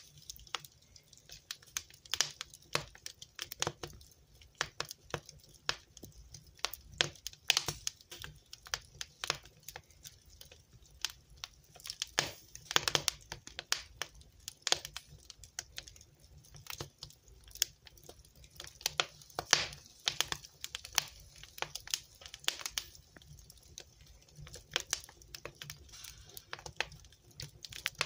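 Wood fire crackling in a fireplace: a constant run of irregular sharp pops and snaps, some much louder than the rest, over a low steady rumble.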